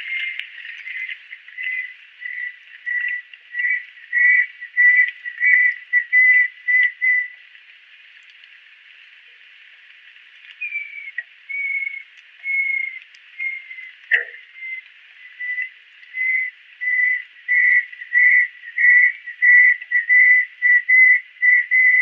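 Banded kingfisher calling: a run of short clear whistled notes at one pitch, about two a second, which stops about seven seconds in. After a pause of about three seconds, a falling whistle opens a second run of the same notes that grows louder and quicker.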